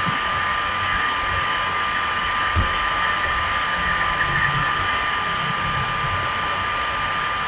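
Steady background noise like a running fan or hair dryer, with a thin high whine held at one pitch; nothing else happens.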